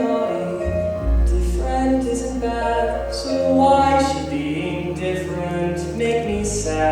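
A solo voice singing a slow musical-theatre song over an accompaniment that holds long, low bass notes.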